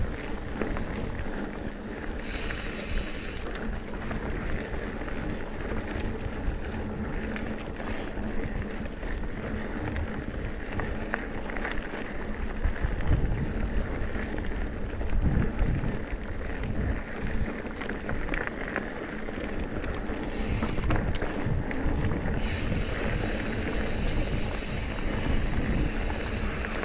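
Trek Top Fuel mountain bike ridden along dirt singletrack: a continuous low rumble of tyres rolling over the trail, with small clicks and knocks from the bike and wind buffeting the microphone.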